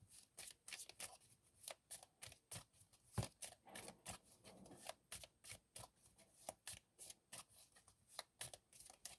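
A deck of tarot cards being shuffled by hand: soft card clicks and slaps, about three a second.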